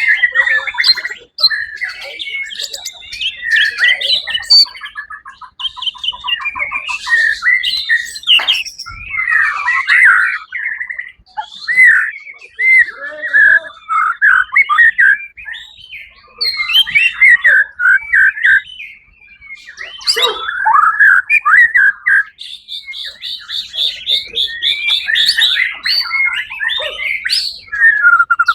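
White-rumped shama (murai batu) singing a long, varied song of loud whistles, chattering rattles and fast trills, with hardly a break.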